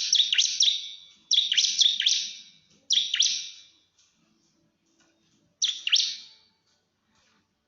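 Bar-winged prinia (ciblek) singing in rapid-fire bursts of sharp, high, falling notes. There are four quick bursts separated by short pauses. This is the 'nembak' rapid song a ciblek uses to call a rival.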